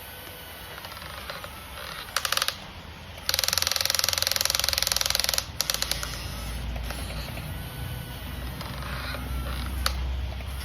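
Fast, even mechanical clicking, a ratchet-like rattle: a short burst, then a louder run of about two seconds. A low steady rumble follows.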